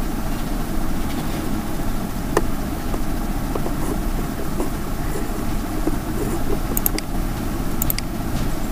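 Steady low rumbling background noise with a few short, sharp clicks.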